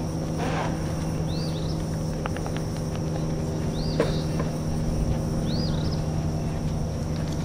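Outdoor summer ambience: a steady high insect drone under a low hum, with a bird repeating a short rising-and-falling chirp four times, about every two and a half seconds.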